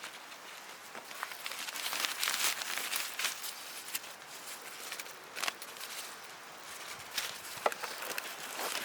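Rustling and crinkling handling noise with scattered sharp clicks, louder in the middle.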